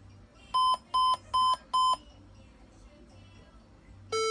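Desktop computer's motherboard beeper sounding a POST error code: four short, high beeps in quick succession about half a second in, then a longer, lower beep starting right at the end. The beep code signals a no-display fault, which the owner traced to the wrong power adapter.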